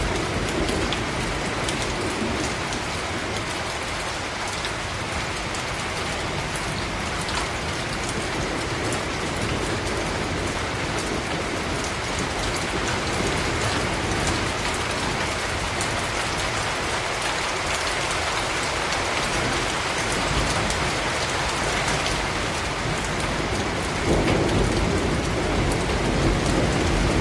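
Steady rain falling, with scattered distinct drops. A low rumble swells in about three seconds before the end.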